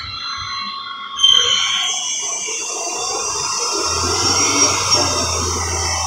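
Matsuura MC-500V CNC mill's spindle starting up about a second in after cycle start and running with a steady high-pitched whine, with a low hum joining about four seconds in.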